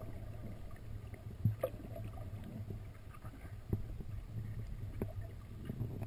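Muffled underwater sound picked up by a camera held under the surface beside an inflatable boat's hull: a steady low rumble of the water with a few faint knocks.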